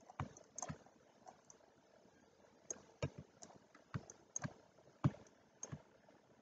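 Faint, irregular clicks and taps of a computer mouse and keyboard being worked, about a dozen sharp clicks spread unevenly.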